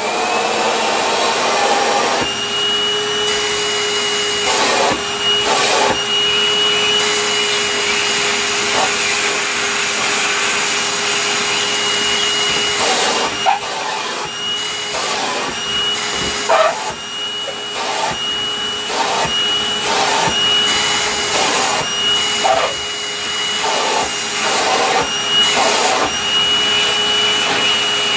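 National MC-250c vacuum cleaner running with its crevice tool: a steady motor hum and whine, with the high airflow hiss changing again and again as the nozzle moves. Occasional short knocks are heard throughout.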